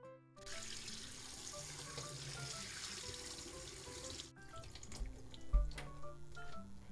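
Tap water running in a steady stream onto a mesh strainer of fish in a stainless-steel sink, cutting off suddenly about four seconds in. A few knocks and low thumps follow.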